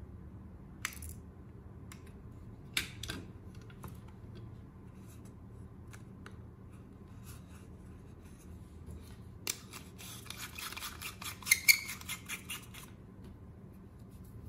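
Utility knife blade prying and scraping at the plastic housing of an LED bulb to lift out its LED board: a few sharp clicks, then, past the middle, about three seconds of rapid scraping and clicking.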